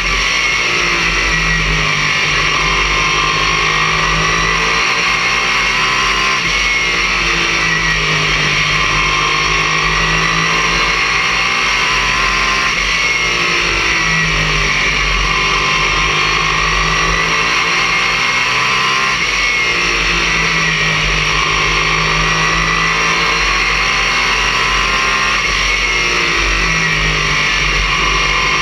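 Oval-track race car's engine heard from inside the cockpit at racing speed. Its pitch falls and climbs again about every six seconds as the car lifts for each turn and accelerates down each straight, over a steady rushing noise.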